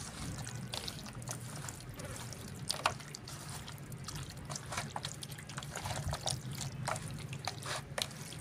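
Chicken pieces being mixed into a yogurt and spice marinade: irregular wet squelches and small clicks.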